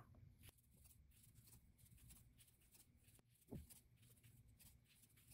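Near silence, with faint soft rustles and ticks of a crochet hook working yarn and a soft low bump about three and a half seconds in.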